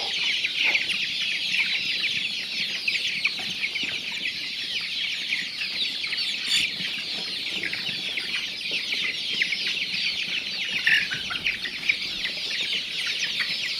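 A large flock of chicks peeping constantly, with many short, high calls overlapping into a steady chorus.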